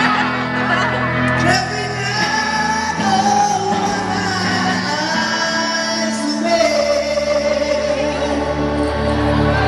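Live pop singing into a handheld microphone, amplified over a loud backing track with bass, the singer holding long notes.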